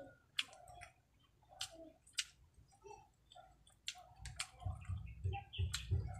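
Close-miked eating sounds: sharp wet mouth clicks and lip smacks, then steady chewing of about three chews a second from about four seconds in.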